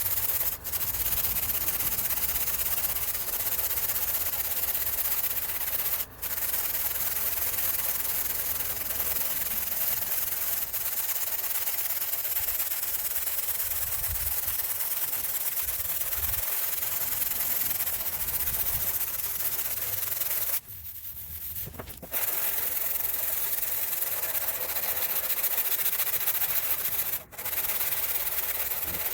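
Sanding on the sheet-steel trunk lid of a box Chevy Caprice: a steady scratchy hiss as the surface is worked down. It breaks off briefly three times, the longest gap lasting over a second.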